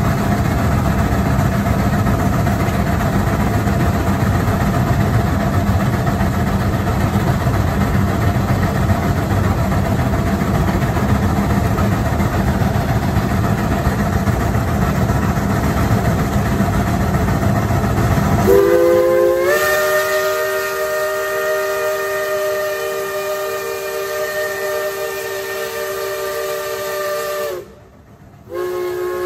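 Steady loud rushing hiss from a working geared steam locomotive, then about two-thirds of the way in a steam locomotive whistle opens up, sounding a chord in one long blast of about nine seconds. It breaks off briefly and starts a second blast right at the end.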